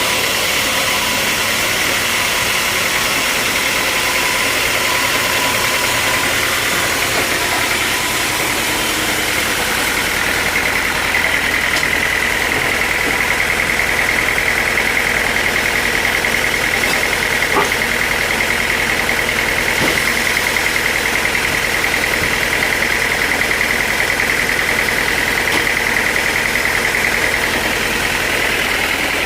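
Sawmill machinery running steadily with a high whine that grows stronger about a third of the way in and eases near the end, with a couple of faint knocks in the middle.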